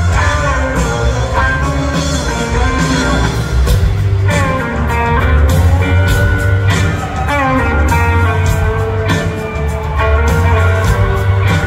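Live blues-rock band playing an instrumental passage: electric guitar over bass and drums, with no singing.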